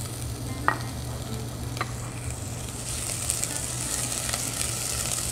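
Chopped onion sizzling as it fries in hot olive oil in a red enamelled pot, being stirred with a spatula; the hiss grows brighter about halfway through. Two sharp taps of the utensil come in the first two seconds, about a second apart.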